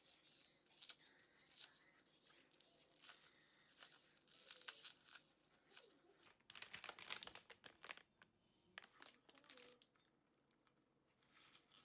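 Raw cabbage leaves being torn apart by hand: faint, crisp crackling rips coming in irregular bunches, with a quieter pause near the end.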